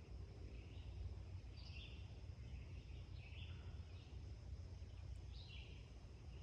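Morning songbirds giving short chirps every second or two over a steady low rumble.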